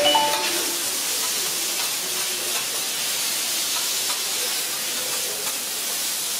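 Noodles, bean sprouts and shrimp sizzling on a hot iron griddle: a steady, even hiss of frying.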